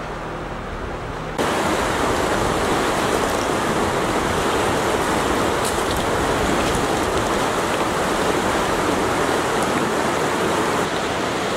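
Steady rush of the Shoshone River's whitewater tumbling over boulders, a dense even roar with no pitch; it jumps louder about a second and a half in.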